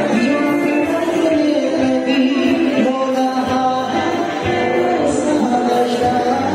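Background music with a melodic line of long held notes over a steady accompaniment.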